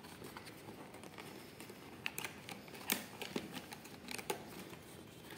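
Quiet handling of a cardboard phone box: faint rustling and a scatter of light clicks and taps as its flaps and inner tray are opened.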